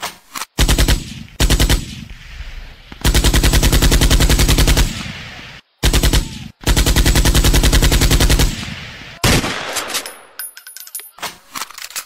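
Machine-gun fire sound effect: several loud bursts of rapid automatic shots, the longest about two seconds, each starting and stopping abruptly.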